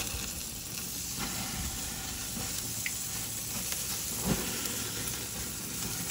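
Northern pike fillet sizzling on a hot grill, with garlic butter being brushed on and flames flaring under it: a steady hiss with a few faint crackles and one soft knock about four seconds in.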